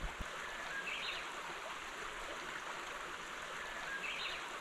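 Shallow mountain river running steadily over stones, with a small bird chirping briefly twice, about a second in and near the end. A couple of soft low thumps right at the start.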